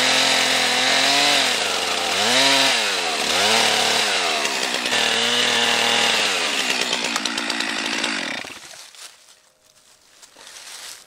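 Stihl MS 362 two-stroke chainsaw cutting down into a standing stump, its engine pitch dipping and recovering several times as the chain bites into the wood under load. About eight seconds in the saw is shut off and its note winds down.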